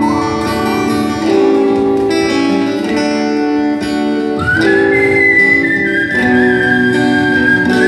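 Acoustic guitar played live in an instrumental passage of a song, with sustained strummed chords. A high held melody line sounds over the guitar and steps up in pitch about halfway through.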